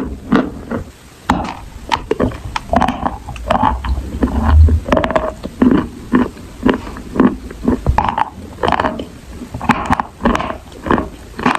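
Close-up eating sounds: a quick, irregular run of chewing and mouth noises, loud against the microphone.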